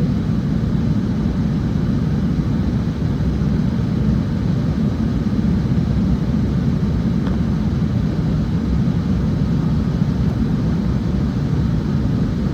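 Passenger airplane cabin noise in flight: a steady low rumble of engines and airflow heard from inside the cabin.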